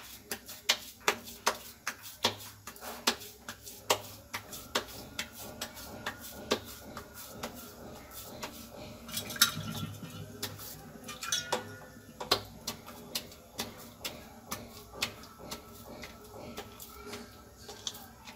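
Hands slapping a ball of maize-flour (makki) dough flat between wet palms, a steady run of soft slaps about two a second. The slaps break off briefly near the middle while a hand dips into a steel bowl of water.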